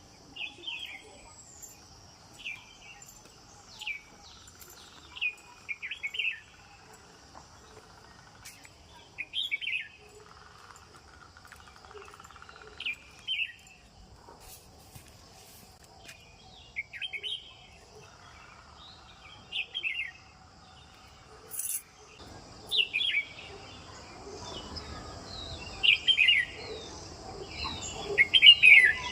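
A bird giving short chirps every second or two, loudest near the end, over a steady high drone of insects. Low background noise rises about two-thirds of the way through.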